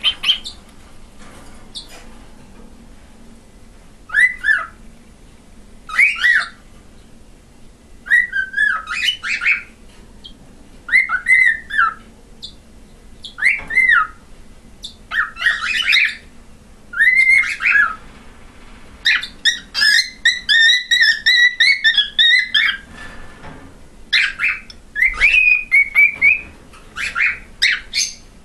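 Male cockatiel singing its learned whistle song: short whistled phrases that glide up and down in pitch, with pauses between them, and a longer unbroken warbling run about two-thirds of the way through.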